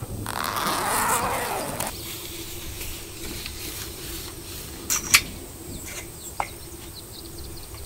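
Rustling of the truck awning's fabric cover being pulled open for about two seconds. Then a faint steady buzz, with a few sharp clicks and taps as the awning is set up on its poles.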